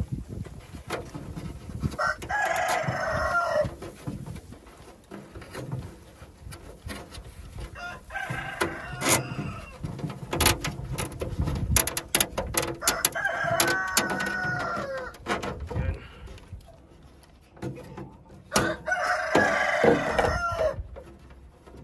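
A rooster crowing four times, about five seconds apart, each crow lasting a second or two. Between the crows come light clicks and rustles from electrical wire and a plastic cable tie being handled.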